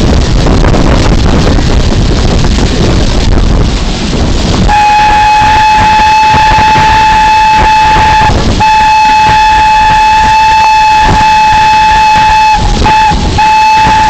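A loud rushing noise, then about four and a half seconds in a steam locomotive whistle starts sounding one steady high note. It is held for the rest, broken by a short gap about eight seconds in and two quick breaks near the end.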